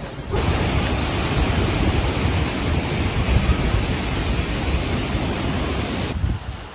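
Cyclone storm noise: a loud, even rush of wind and heavy rain with a deep rumble. It starts abruptly just after the beginning and cuts off about six seconds in.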